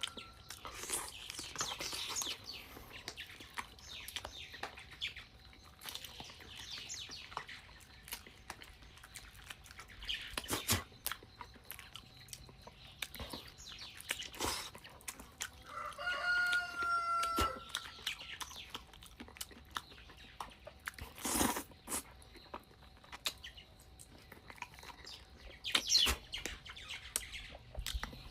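A rooster crows once, a drawn-out call about two-thirds of the way in. Scattered short, sharp clicks are heard throughout.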